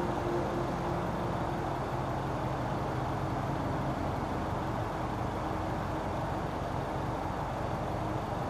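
Steady outdoor background rumble, like road traffic, between songs of a Christmas light show; a few faint held musical tones fade out over the first few seconds.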